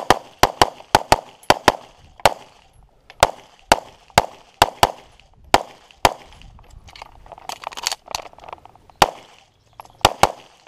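Semi-automatic pistol firing rapid strings of sharp shots, often in quick pairs, about twenty in all, with a lull of about three seconds after the middle before a final pair near the end.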